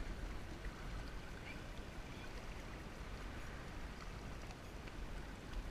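Water sloshing and splashing steadily around the legs and bodies of horses wading through shallow sea water, with a constant low rumble.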